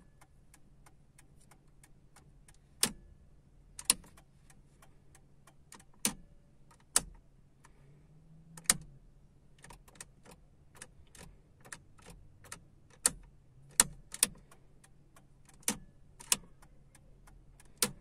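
Plastic clicks of an Opel Vectra B steering-column combination switch as its turn-signal and light stalks are flicked through their positions, a dozen or so sharp clicks at uneven intervals with lighter ticks between them. The switch is being tested after its worn contact pieces were repaired.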